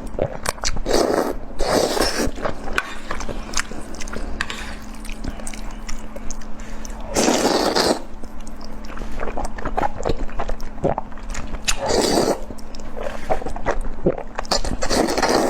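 Close-up eating sounds: biting and chewing with many small wet clicks, plus a few louder bursts about a second long.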